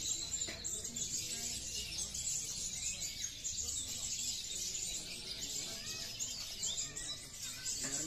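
Many caged olive-backed sunbirds (kolibri ninja) singing together: a dense, unbroken chorus of high, fast overlapping chirps and trills.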